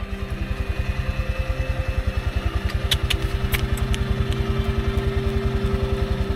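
Honda Click 125i scooter's single-cylinder engine idling with a rapid, even putter, a few light rattles around the middle.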